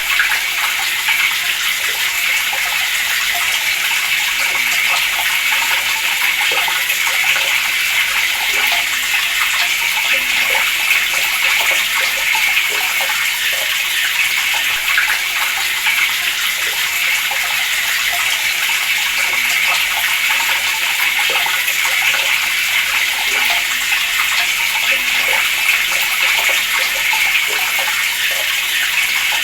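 Water running steadily from a tap in a constant splashing stream.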